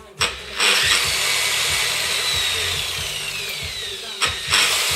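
DeWalt DWP849X rotary polisher's electric motor running at a raised speed setting, with a whine that slowly falls in pitch. It is triggered in a short burst, then runs continuously, drops off briefly about four seconds in, and comes straight back on.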